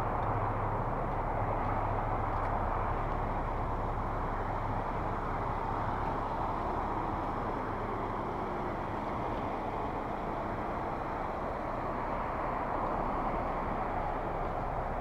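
Steady outdoor rushing noise with a low vehicle engine hum underneath that fades out about five seconds in.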